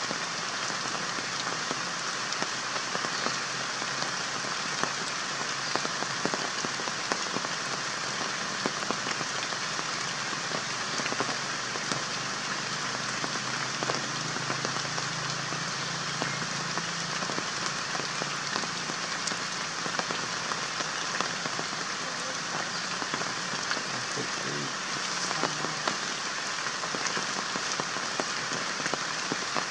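A steady hiss with many faint, scattered ticks running through it, with no change in level.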